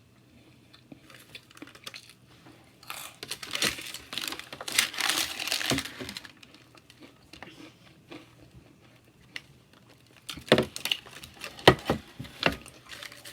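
A snack bag crinkling and rustling as it is handled for a few seconds, then a few sharp clicks and knocks near the end.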